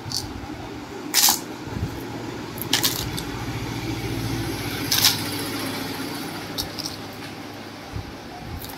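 Bead necklaces clicking and rattling against a clear plastic storage box as they are handled and dropped in, with three sharper clacks about one, three and five seconds in. A low hum runs underneath from about three seconds until near the end.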